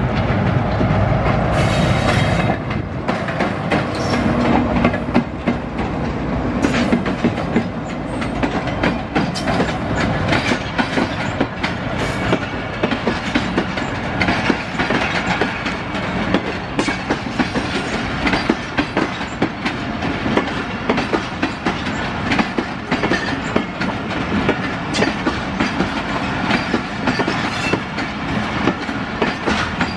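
A diesel-hauled passenger train passing close by. The locomotive's engine is loudest in the first two or three seconds, then a long string of coaches rolls past with a rapid, continuous clickety-clack of wheels over the rail joints.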